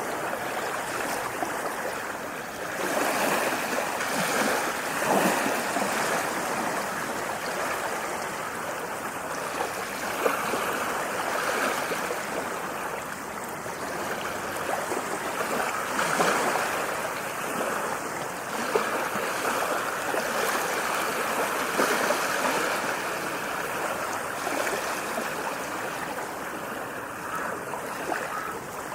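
Ocean waves washing in, a steady rushing of water that swells and eases every few seconds, with small splashes.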